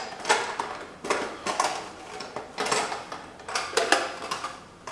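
Cloth towel wiping over a Lionel prewar standard-gauge metal box car: several short bursts of rubbing with brief pauses between, along with light knocks as the car is turned in the hands.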